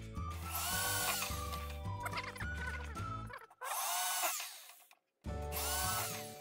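Handheld electric drill boring a thin pilot hole through a plastic sheet, in three short bursts. Each burst is a whine that spins up and winds down over about a second. Background music plays underneath.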